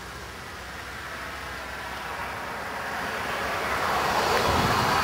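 A car passing on the road, its tyre noise swelling gradually to its loudest near the end.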